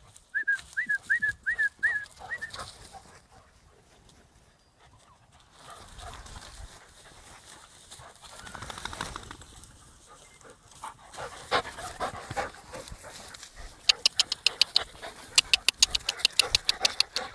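Puppies playing rough in grass: about seven short, high-pitched squeaks in the first two seconds, then scuffling and rustling, and a fast run of sharp clicks near the end.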